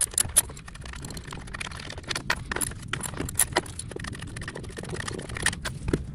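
Socket wrench ratcheting, with small metallic clicks and clinks, as the two 8 mm screws holding an EVAP purge valve are backed out.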